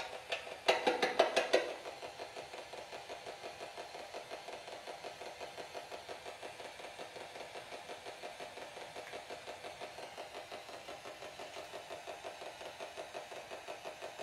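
Ghost box (spirit box) radio sweeping through stations: a steady, rapid chopping of static, several pulses a second, with a louder burst about a second in.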